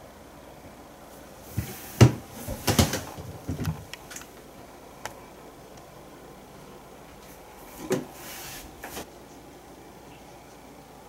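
A few sharp knocks and rattles, clustered about two to four seconds in, then another short knock and a brief rubbing sound near eight seconds in, over quiet room tone.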